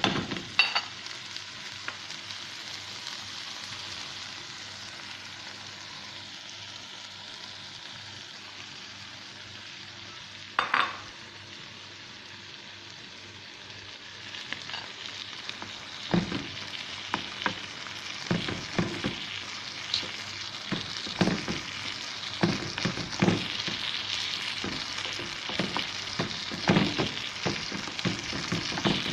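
Bitter gourd and egg sizzling steadily in a frying pan. There is one knock about ten seconds in, then through the second half a utensil repeatedly knocks and scrapes against the pan as the dish is stirred.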